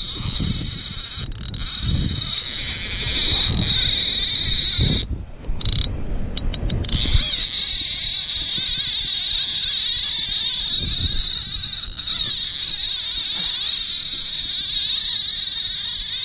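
Okuma Convector CV 45L lever-drag reel buzzing steadily as a big fish pulls line off against the drag, with a brief break about five seconds in before the line starts going out again. Wind rumbles on the microphone underneath.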